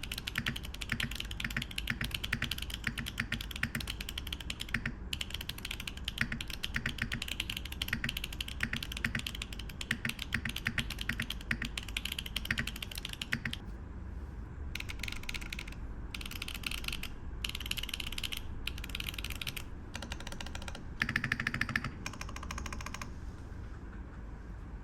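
Mechanical keyboard with HMX Hydra Tactile switches and GoMaster Winter Breath keycaps being typed on fast and steadily. After about 13 seconds it breaks into short runs of rapid keypresses separated by brief pauses, one of them louder and deeper about 21 seconds in.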